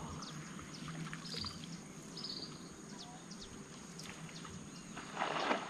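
Open-air background with birds chirping and calling, and a short rush of noise, like moving water, about five seconds in.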